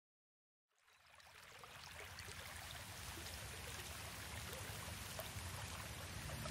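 Silence, then about a second in a steady wash of water sound with scattered drip-like ticks fades in and slowly grows louder: a water ambience opening the soundtrack.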